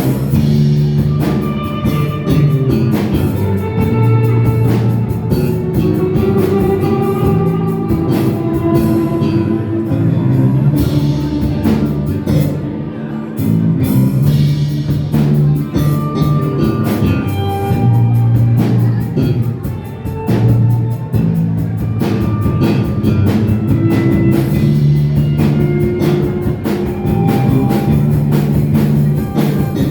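Live rock band playing a song: drum kit beating steadily under guitar and held notes.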